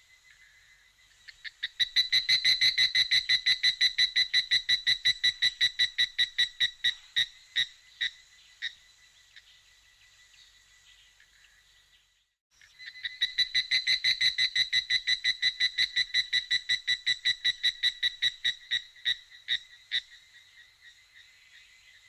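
A rapid pulsed animal call, a high trill of about six pulses a second that slows and fades at the end. It plays twice in identical runs of about seven seconds, like a recording played on a loop.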